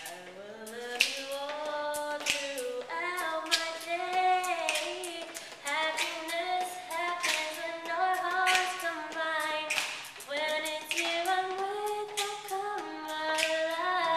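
Young people singing a song a cappella, holding and sliding between notes, with sharp finger snaps keeping a loose beat.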